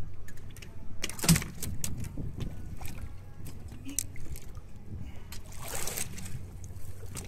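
Fishing boat's engine idling with a steady low hum, with scattered small clicks, a sharp knock about a second in and a short rushing hiss around six seconds.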